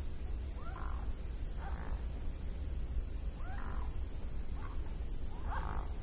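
Mute swan giving short calls, about five in quick succession spaced roughly a second apart, each rising and then falling in pitch, over a steady low rumble.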